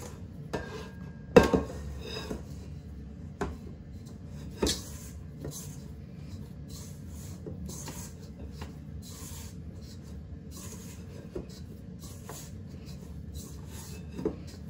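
Hands kneading and shaping wholemeal bread dough in a stainless steel mixing bowl: soft rubbing and working of the dough, with a few knocks of hand and dough against the metal bowl, the loudest about a second and a half in.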